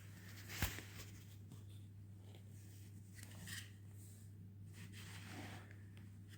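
Quiet handling of the Erbauer multitool's quick-release blade clamp: a single click about half a second in, then faint rubbing and small ticks as it is worked, over a steady low hum.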